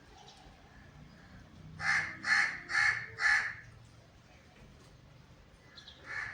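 A crow cawing four times in quick succession, then once more near the end.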